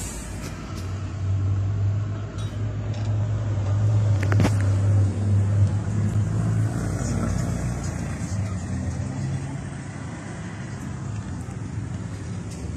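Minibus engine running, heard from inside the driver's cab: a steady low drone that grows louder for a few seconds as the bus pulls along, then eases off. A single sharp click about four seconds in.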